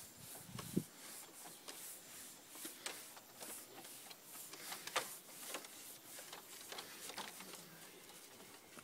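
Pad applicator scrubbing oil into solid-wood decking boards, with scattered light clicks and knocks against the wood; a sharper knock comes about a second in and another about five seconds in.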